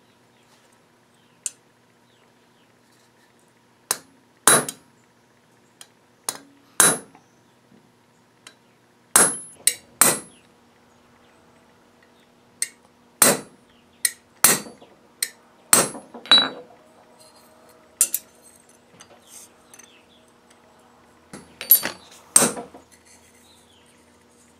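Hammer striking a steel letter stamp held on a knife blade resting on an anvil, stamping the maker's mark into the steel: sharp, ringing metal strikes, many in quick pairs, about twenty in all at uneven intervals, with a faint steady hum underneath.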